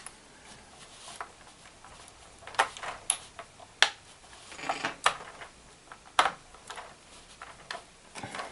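A small screwdriver driving a screw into the crankshaft pulley of a plastic model V8 engine kit: scattered sharp clicks and short scrapes of metal on plastic, at uneven intervals.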